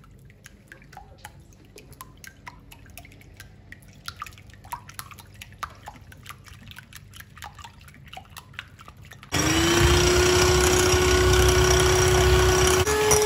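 Eggs being beaten by hand with a balloon whisk in a ceramic bowl: quick light ticks and taps of the wires against the bowl and a wet slosh. About nine seconds in, an electric hand mixer starts with a sudden loud whirring run and a motor whine whose pitch steps up near the end.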